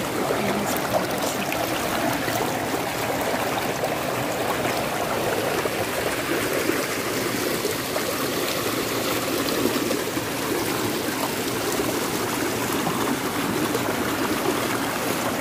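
Water flowing steadily over stones in a shallow channel that feeds a water-driven grain mill: a continuous rush and burble.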